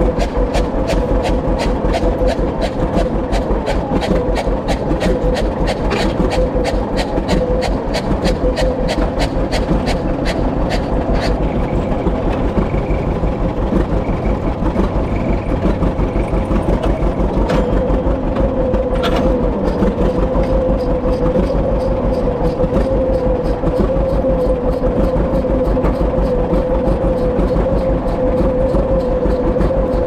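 An engine running steadily with a fast, even beat.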